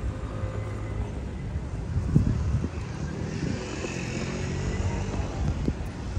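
City street traffic, with a motor vehicle running past over a steady low rumble.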